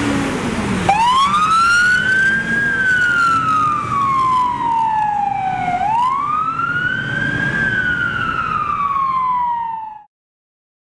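Fire engine siren wailing: starting about a second in, it makes two slow rises and falls, each about five seconds long, then cuts off suddenly near the end.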